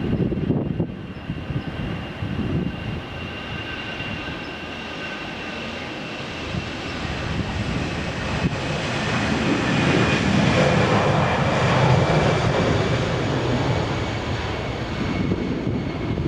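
Jet airliner engines running: a steady whine of several tones that drift slowly lower in pitch, over a low rumble that grows louder around the middle.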